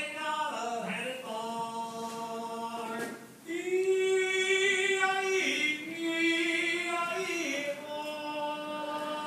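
Unaccompanied male singing, holding long steady notes that step up and down in pitch, louder for a couple of seconds from about three and a half seconds in.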